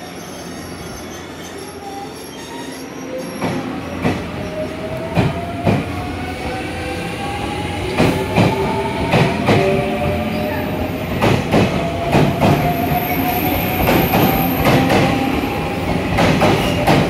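JR Central 383 series electric train pulling away from the platform. Its motor whine rises steadily in pitch as it gathers speed, and the wheels clack over rail joints, the clacks coming closer together and growing louder.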